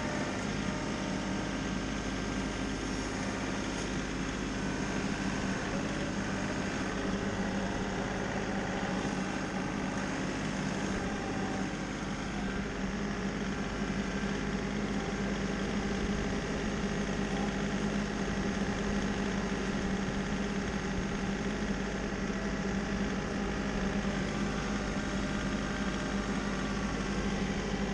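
An engine running steadily, a constant hum that holds the same pitch throughout.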